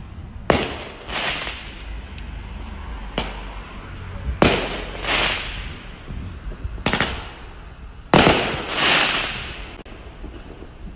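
Fireworks going off: four loud bangs a few seconds apart, with a smaller pop between the first two, each bang followed by about a second of crackling hiss.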